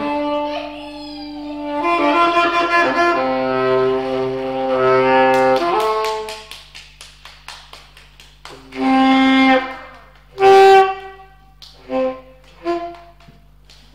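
A saxophone played solo: a slow line of long held notes for about six seconds, then after a short pause a few short separate notes, the loudest about ten seconds in.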